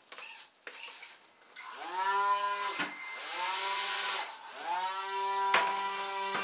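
Small brushed electric motor of a radio-controlled air boat spinning its air propeller: a whine that starts about a second and a half in, rises quickly in pitch and holds steady, sags twice as the throttle is eased, and spins back up.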